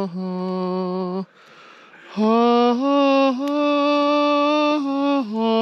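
A voice singing long held notes in a slow, solemn tune, stepping between a few pitches, with a short pause about a second in.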